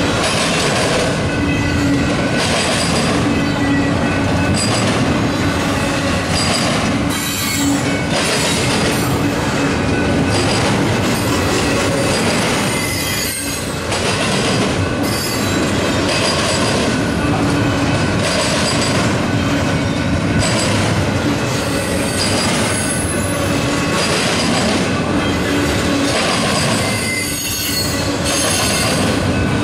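Loaded double-stack container well cars rolling past at close range: a continuous loud rumble and clatter of steel wheels on rail. It carries a high wheel squeal that comes and goes, and dips briefly a few times.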